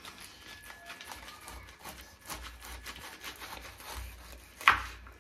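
A knife cutting through a ripe pineapple, giving a run of small crisp clicks and crunches. There is one louder, sharper crack about four and a half seconds in.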